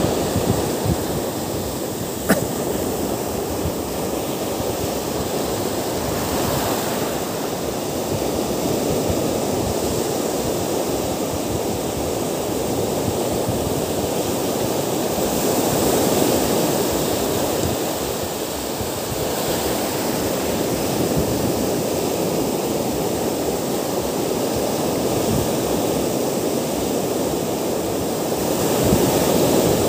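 Ocean surf breaking and washing up a sandy beach, a steady rush of water that swells and eases as sets come in. A single sharp click about two seconds in.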